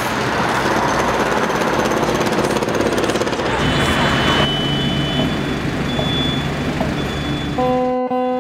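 Street traffic noise with a loud, rough rattling engine sound, easing after about three and a half seconds into a steadier hum. Plucked guitar notes begin near the end.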